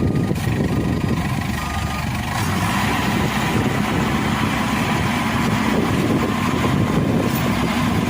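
Combine harvester engine running steadily.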